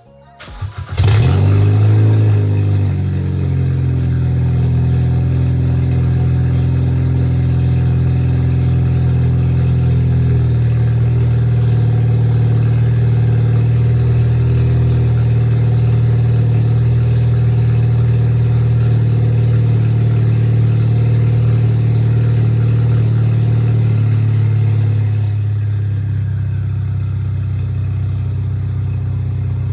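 Hyundai Veloster N's turbocharged 2.0-litre four-cylinder starting up and idling loud and raw with the exhaust removed. It catches about a second in with a flare, holds a steady high idle, then drops to a slightly lower idle near the end.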